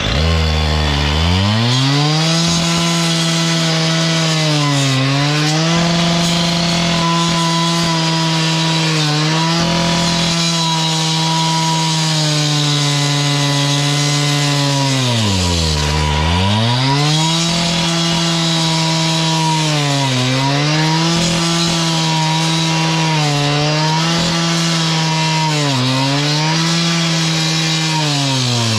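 Two-stroke gas cut-off saw (concrete saw) running at full revs, its engine note sagging and recovering again and again as the blade bites into the concrete pad for a saw cut. It revs up in the first second, and the deepest drops come about halfway through and near the end.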